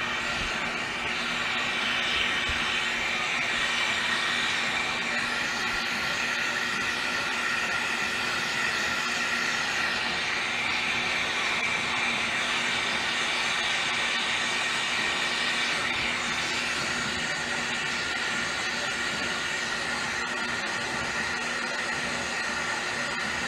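Steady hiss of two glassblowing torch flames working glass on a lathe, with a faint steady hum underneath.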